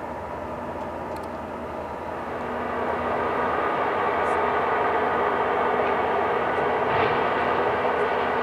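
Diesel engine of a high-reach demolition excavator running steadily under load, growing louder about three seconds in.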